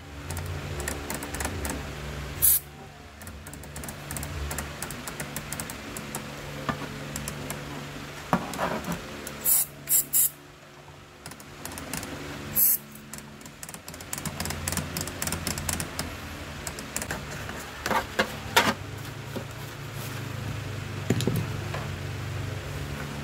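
An aerosol spray can hisses in about four short bursts, cleaning a dirty, burnt amplifier circuit board. Frequent light clicks and rattles come from the board and its wires being handled, over a steady low hum.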